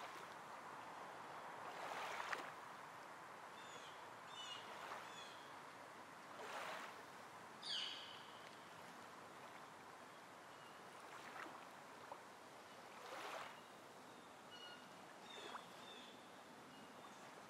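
Faint outdoor ambience: a low hiss with soft whooshing swells every couple of seconds, the sharpest one about eight seconds in, and scattered faint high chirps of small birds.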